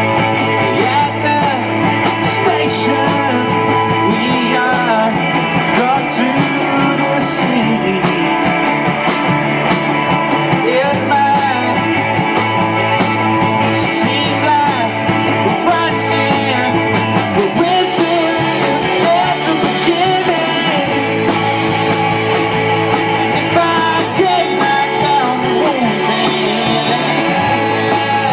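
Roots rock band playing live, with a sung lead vocal over guitars and a bass line that moves between held notes every couple of seconds.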